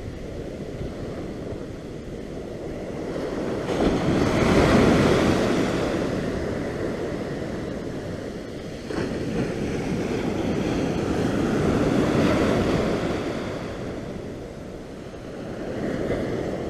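Ocean surf washing on a beach: a steady hiss of waves that swells and fades again every few seconds, with wind buffeting the microphone.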